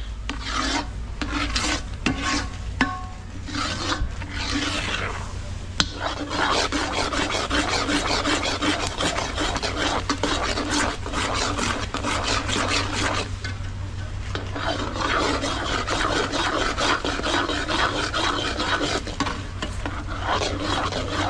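A spoon scraping round the bottom of a pot, stirring thick milk-and-sugar pera as it cooks down. Rasping strokes come as separate sweeps for the first few seconds, then run on fast and continuous with a short pause about two-thirds of the way through.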